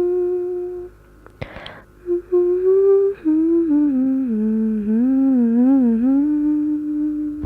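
A person humming: a long held note that stops just under a second in, a short breath, then a hum that steps down in pitch, wavers up and down and settles on a steady held note.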